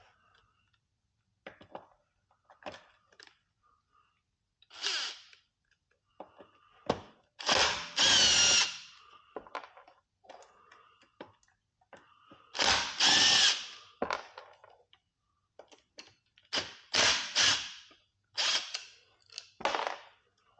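Cordless power screwdriver or drill running in about six short bursts, the motor whining up and down as it works four screws; the two longest runs come about a third and two thirds of the way in, with small clicks between the runs.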